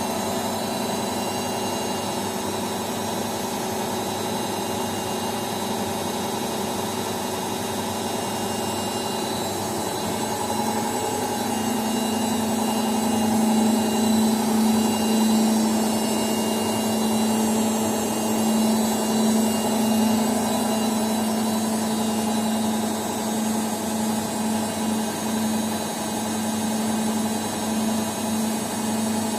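Washing machine running: a steady motor hum whose tone grows stronger about eleven seconds in.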